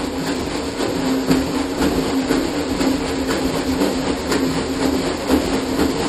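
Rinse water sloshing and churning inside the plastic waste holding tank of a Camco 41545 portable cassette toilet as it is shaken hard back and forth to loosen residue.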